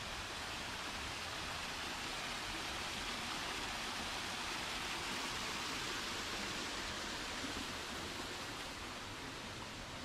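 A small waterfall splashing over rock ledges into a shallow pool, making a steady rushing hiss.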